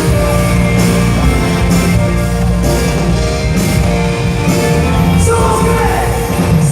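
Live rock band playing loudly through a PA, with a sung vocal line over drums, cymbals keeping a steady beat of about two strokes a second.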